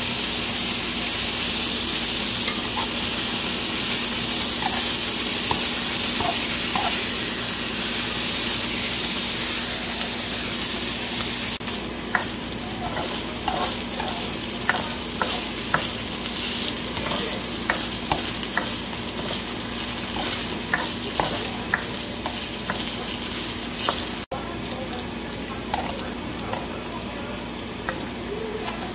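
Pork belly pieces sizzling as they fry in a wok, a steady hiss that eases a little after about twelve seconds. From then on, a spatula turning the meat scrapes and clicks against the pan every second or so.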